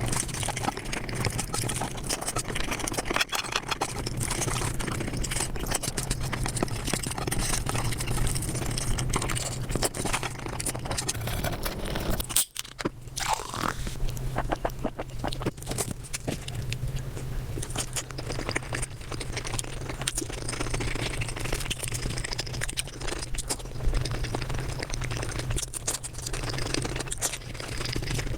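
Eating sounds played at five times speed: rapid chewing, crunching and the scrape of utensils on a plate, as a fast stream of clicks over a steady low hum, broken by a short gap about halfway through.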